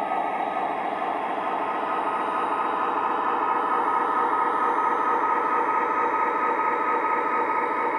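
Proto-Sound 3.0 sound system of an Atlas O scale SD40-2 model locomotive playing a diesel engine idling through the model's onboard speaker: a steady, even engine sound.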